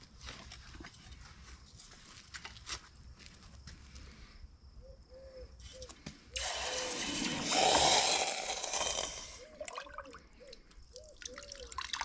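Freshly cast aluminium medallion, still hot from the pour, dunked into a bucket of water to quench: a loud hiss of boiling water and steam starts about six seconds in and lasts about three seconds, with gurgling bubbles after it.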